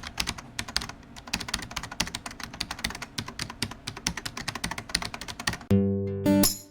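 Computer keyboard typing: quick, irregular key clicks for about five and a half seconds. Then music with plucked chords comes in loudly near the end.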